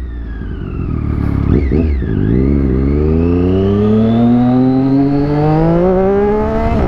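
Triumph Daytona 675R's three-cylinder engine: the revs drop over the first two seconds as the bike slows, then climb steadily for about four seconds as it accelerates away, with a brief flick in pitch near the end.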